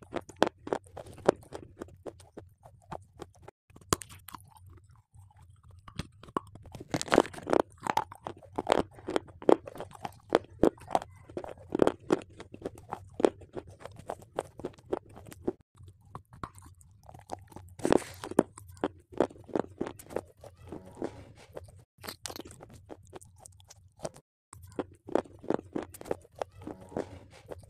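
Close-miked crunching and chewing as bites are taken from a hard grey block: many sharp, irregular crunches, thickest in two stretches a few seconds in and about two-thirds of the way through.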